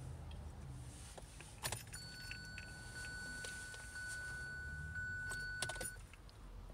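Car keys jangling with a few sharp clicks, while a steady high electronic beep sounds for about four seconds in the middle.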